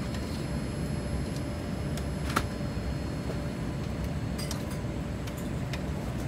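Steady in-flight cabin noise of a Boeing 787: a low rumble and airflow hiss, with a few faint clicks, the sharpest about two seconds in.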